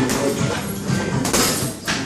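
Music playing, with a few sharp slaps and thuds of boxing gloves landing during sparring; the loudest comes about a second and a half in.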